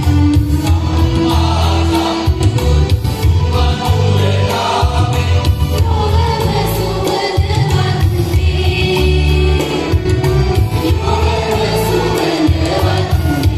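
Mixed choir of women and men singing a Sinhala Buddhist devotional song, amplified through microphones and loudspeakers, over a deep accompaniment of held low notes that change every second or two.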